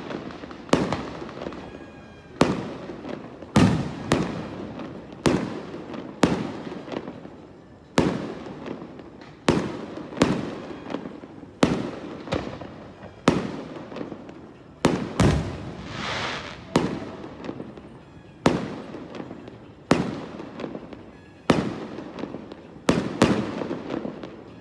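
Fireworks display: aerial shells bursting one after another, about one bang a second, each bang echoing away before the next. About sixteen seconds in there is a longer hissing burst.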